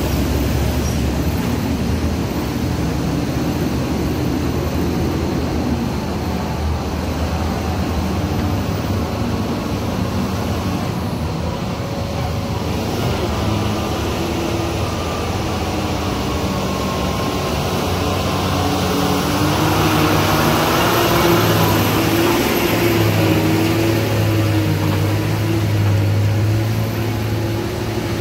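Diesel engines of heavy loaded Tata tipper trucks running on a hairpin ghat road: one passes close at the start, and another grows louder from about twenty seconds in.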